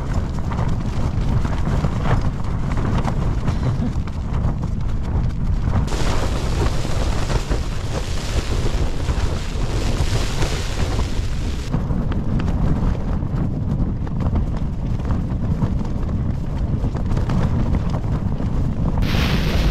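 Storm-force wind gusts battering a Fjallraven Abisko Lite 2 tent, heard from inside: a loud, unbroken rush and buffeting of the fabric, with a harsher, hissier stretch about six seconds in that lasts several seconds.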